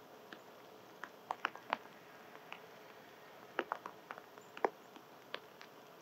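Eastern chipmunk cracking and chewing seeds and nut pieces: irregular small sharp clicks, a cluster about a second in and another, busier one from about three and a half to four and a half seconds in.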